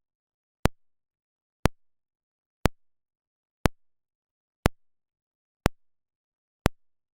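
Speaker polarity test pulse: a sharp electronic click once a second, seven in all, with dead silence between. Played through a speaker, this pulse lets a phase tester such as the FH-168 show whether the speaker is wired in correct polarity.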